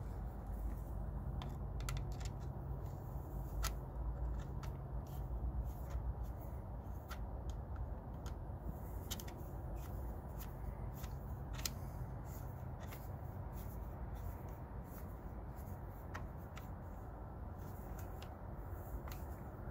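Screwdriver tightening the wire lug screws on a 100-amp two-pole main breaker: irregular small metallic clicks and scrapes as the screws are turned down, over a low rumble.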